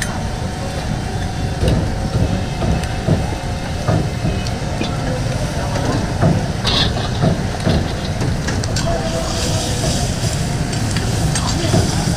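Mutton karahi sizzling in the pan over a steady low roar, with the cooking ladle knocking and scraping against the metal karahi now and then. Voices in the background.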